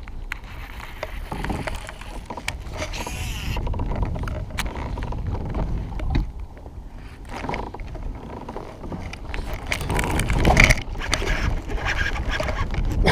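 Rumbling handling noise and water movement aboard a fishing kayak, with scattered clicks and scrapes. About ten seconds in comes a sudden louder burst, as a fish strikes the topwater frog lure.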